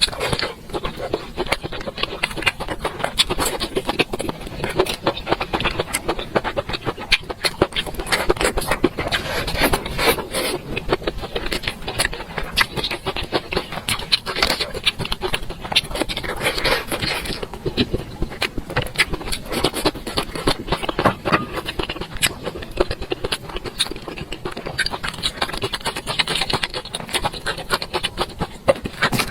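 Close-miked eating sounds: continuous chewing with many small rapid clicks and mouth noises.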